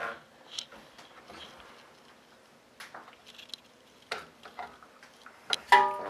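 Light scattered clicks and taps of fingers turning the liquid cooler's thumbscrews and handling its mounting bracket inside a metal PC case, with a louder knock near the end.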